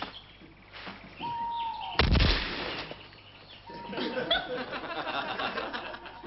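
Sound effects: a steady electronic beep, then a sudden loud bang about two seconds in that dies away within a second, followed by another beep and a run of chirping noises.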